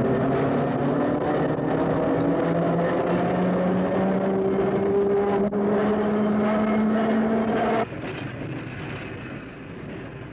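Pacific Electric Red Car traction motors whining, the pitch climbing slowly and steadily as the car gathers speed; the whine cuts off suddenly about eight seconds in, leaving a quieter rolling rumble.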